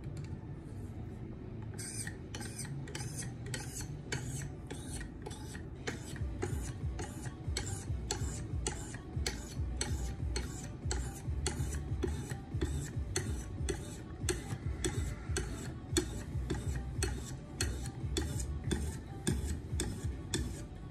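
A 1500-grit sharpening stone on a KME guided sharpener being stroked along a steel knife edge in quick, even passes, about two strokes a second, starting about two seconds in. This is a fine grit stage, refining the edge.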